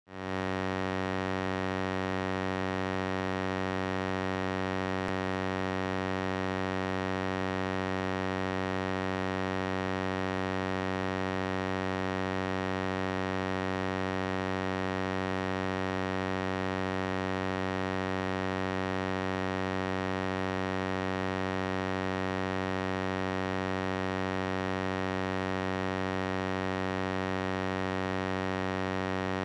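A steady, unchanging low electronic buzz with many overtones, starting abruptly and holding at one pitch without any variation.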